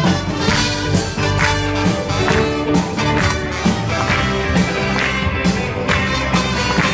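Live band playing an instrumental intro on electric and acoustic guitars, keyboard and drum kit, with a steady beat about two strokes a second.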